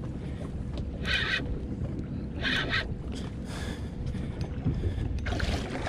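A boat motor running under a steady wash of wind on the microphone. About a second in, and again about two and a half seconds in, a fishing reel's drag gives a short buzz as the hooked cobia pulls line.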